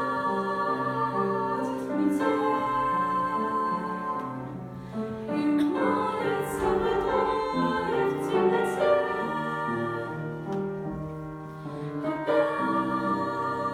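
Three women's voices singing the song together in harmony over an instrumental accompaniment, with long held notes.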